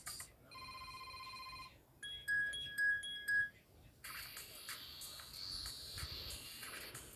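Built-in phone tones of an S-TELL C552 Android phone played one after another: a short steady electronic tone, then three loud high beeps, then a longer hissy tone with faint pitches over it.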